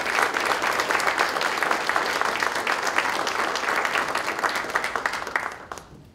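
A roomful of people applauding, steady dense clapping that fades out near the end.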